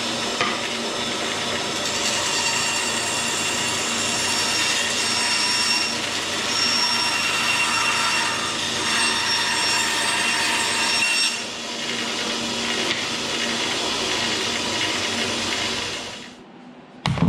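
Electric power saw running and cutting 3/8-inch CDX plywood, with a steady motor whine that dips briefly partway through and stops near the end. A single sharp knock comes just after it stops.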